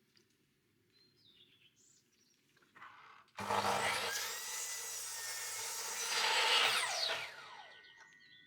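Power saw cutting through wood for about four seconds, its motor then winding down with a falling whine.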